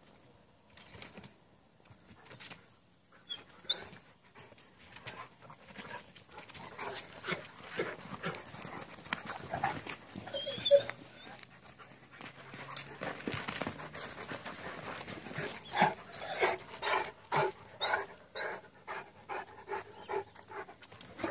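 Dogs panting from the exertion of play, a run of quick breaths about two a second near the end, with a few short, sharp louder sounds, the loudest about eleven seconds in.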